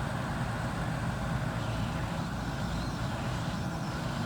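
Hot-air rework station blowing a steady stream of heated air, a constant rushing hiss and rumble, used to soften the adhesive holding a phone's front-facing microphone.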